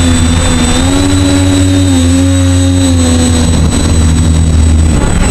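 Motor and propeller of a small FPV model aircraft running steadily at speed, heard from its onboard camera, its pitch wavering slightly with throttle.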